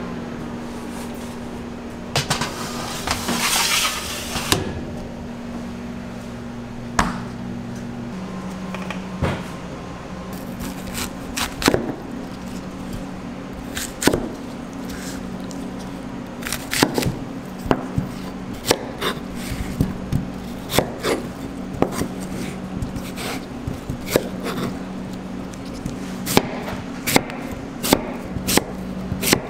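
Chef's knife slicing an Asian pear on a plastic cutting board, each stroke ending in a sharp tap on the board, the taps irregular at first and quickening near the end, over a steady hum of kitchen machinery.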